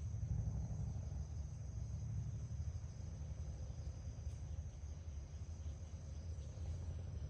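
A steady high-pitched insect chorus, crickets trilling without a break, over a low steady rumble.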